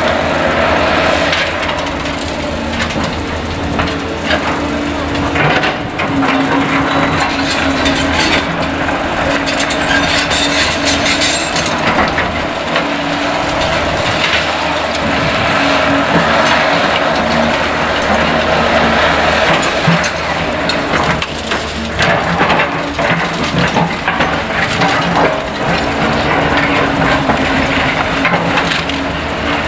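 Caterpillar excavator diesel engines running steadily while the machines break up demolition debris, with repeated cracking, crunching and splintering of rubble and timber.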